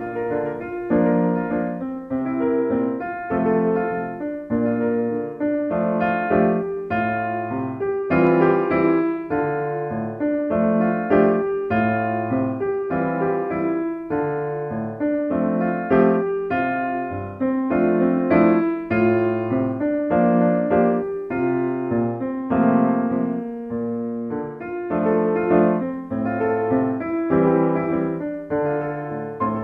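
Background piano music: a steady, continuous run of struck notes and chords.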